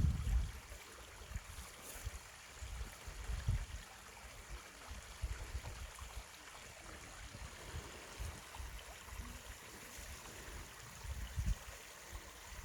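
Mountain stream flowing over rocks, a steady rushing and trickling of water, with irregular low rumbles underneath.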